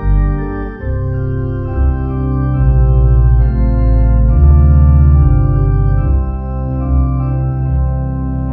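Organ music: slow, sustained chords over a deep bass, changing every second or two.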